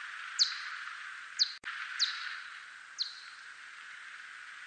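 Whiskered bat (Myotis) echolocation calls made audible: four short, sharply falling chirps, spaced unevenly, over a steady hiss. A single sharp click comes about a second and a half in.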